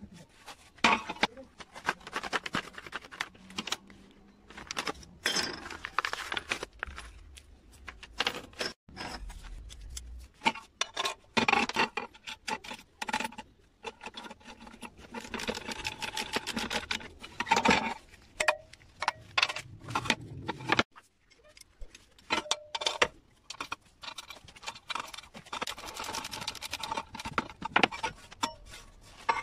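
Metal parts clinking and clicking as lawn mower blades, bolts and nuts are handled and fastened onto a steel blade disc, with several bursts of rapid, even ticking as the nuts are tightened.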